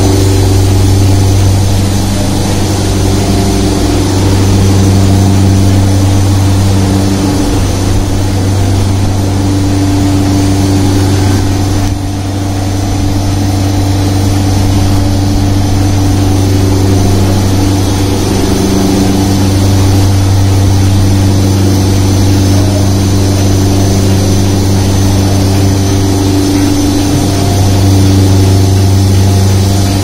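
Machinery running steadily with a deep, even hum.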